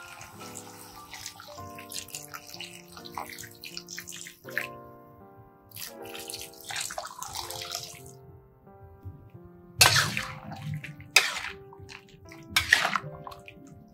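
Water poured into a cooking pan, splashing and trickling over the first few seconds, then a spatula stirring and scraping against the pan in three short loud strokes in the second half.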